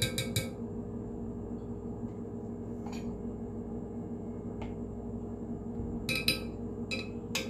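Metal spoon clinking against the side of a glass Pyrex measuring jug while yogurt starter is stirred into milk. There is a quick run of ringing clinks at the start, a couple of faint taps in the middle, and another cluster of clinks near the end, over a steady low hum.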